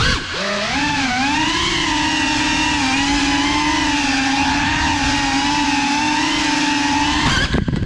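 Brushless motors and propellers of a Cinelog35 ducted cinewhoop drone whining in flight, the pitch wavering up and down as the throttle changes. The whine cuts off suddenly near the end as the drone crashes.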